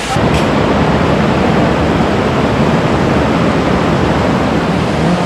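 Steady rushing roar of underground water echoing through a cave passage.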